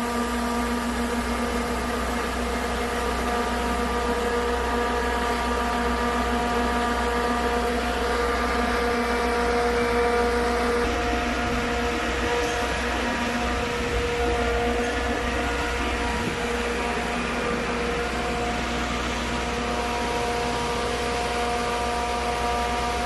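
Diesel engine of a concrete mixer pump, together with a wheel loader's diesel, running steadily at constant speed: an even engine hum whose pitch does not change.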